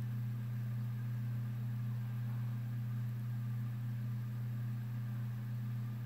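A steady low hum with no change in pitch or level.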